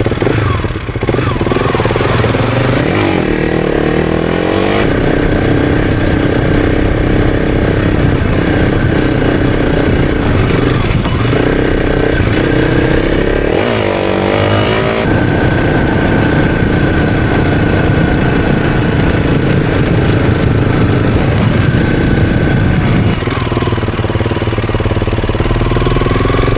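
Honda CRF300's single-cylinder engine running under way, the revs swinging down and up a few times and climbing steadily near the end, over a heavy low rumble.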